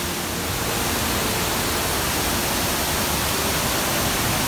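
Waterfall water rushing and splashing over rock, a steady, even hiss with no change in level.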